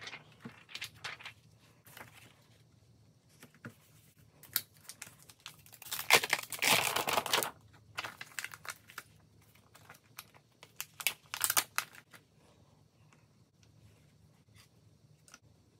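Paper and card being handled: scattered light clicks and rustles, with a louder, longer rustle about six seconds in and a short cluster of them around eleven seconds.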